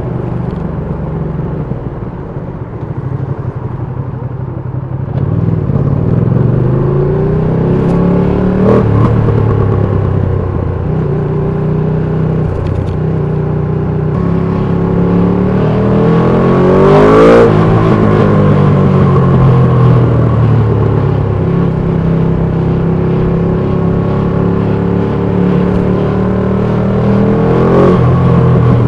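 2020 Ducati Panigale V2's 955 cc twin-cylinder engine under way, its pitch rising and falling with the throttle. About halfway through it revs up to a sharp high peak, then winds down gradually; there are shorter rev rises about a third of the way in and near the end.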